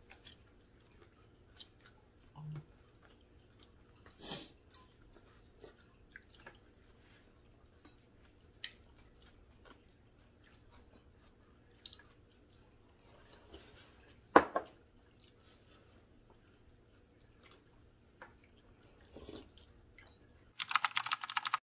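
Faint mealtime sounds: metal chopsticks and spoons clicking against ceramic bowls and plates, with chewing. One sharp clink about two-thirds through, and a dense burst of rapid high ticking in the last second.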